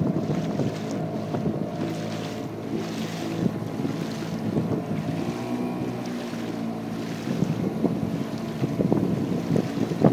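Outboard motor running steadily, driving an inflatable boat along a river, with wind buffeting the microphone in gusts.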